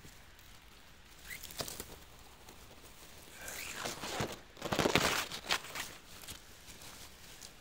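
Moss and dry twigs being parted and pulled by hand close to the microphone: rustling and crackling, in a short burst about a second and a half in and a longer, louder spell from about three and a half to five and a half seconds in.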